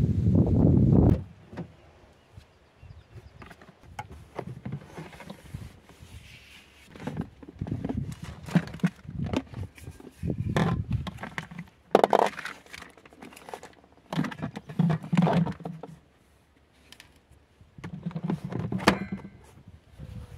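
Handling sounds as things are taken out of a car's boot and a plastic cool box: scattered thunks, knocks, scrapes and rustles at irregular intervals. A loud low rumble fills the first second.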